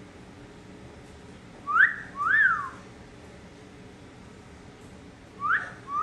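Yellow-naped Amazon parrot whistling a two-note phrase, each note sliding up and then down, about two seconds in, and starting the same phrase again near the end.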